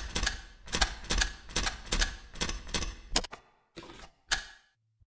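Rhythmic mechanical clacking, about two to three heavy clacks a second, each with a short fading tail. The run stops about three seconds in, and two separate clacks follow.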